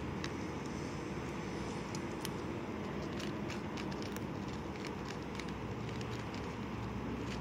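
Cat crunching dry kibble: a run of small, irregular crisp clicks over a steady background rumble.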